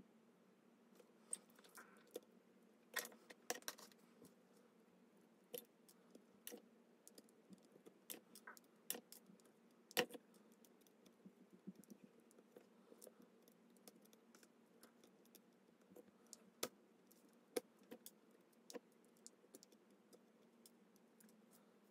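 Irregular light clicks and taps of small tools and parts being handled while working on a cassette walkman, over a faint steady hum. The loudest tap falls about halfway through.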